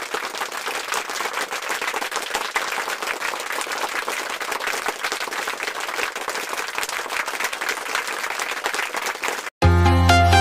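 Steady applause from many hands clapping, which cuts off abruptly about nine and a half seconds in. Loud electronic music with a heavy bass starts right after.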